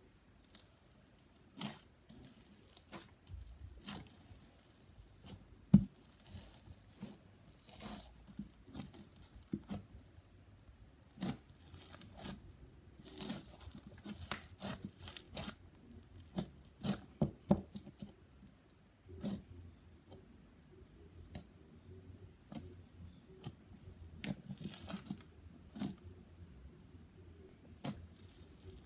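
Hands squishing, poking and stretching a blue foam-bead slime, giving irregular crackles, pops and small sticky clicks, with one sharper pop about six seconds in.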